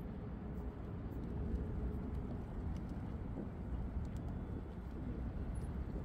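A large flock of feral rock pigeons cooing over a steady low rumble.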